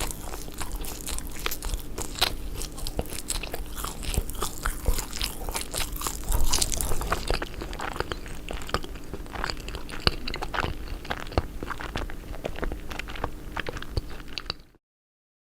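A person biting and chewing bread with cheese, close up, with many sharp crackles of the bread packed tightly together for the first half and growing sparser and softer as the chewing goes on. It cuts off suddenly near the end.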